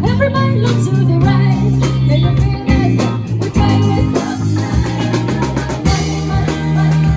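Live band playing a pop song: singing over drums, bass and guitar.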